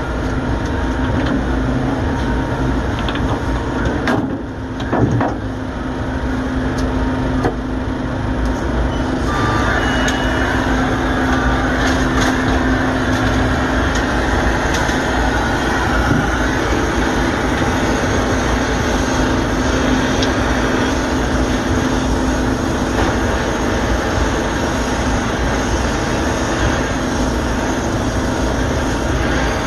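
Steady machinery drone with a low hum under it. From about a third of the way in, a steady rushing noise is added, and near the end a brazing torch flame is heating the copper joint of a new liquid-line filter drier.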